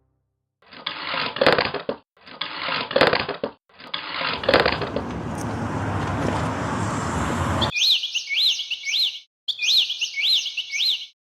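Cartoon sound effects. First come three noisy swishes, each with a sharp click in the middle, then a hiss that builds. Two runs of quick, rising, bird-like chirps follow, about three a second.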